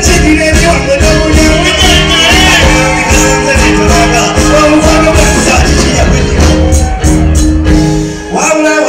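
Loud music with a beat and a voice singing over it through microphones. The level dips briefly near the end.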